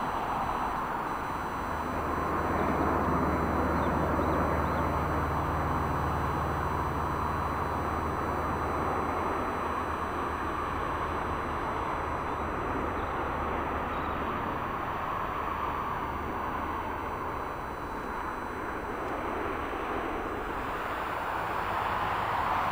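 Arriving jet airliner's engines: a steady broad roar that swells about two seconds in and slowly eases off, with a low engine drone under it through the first half.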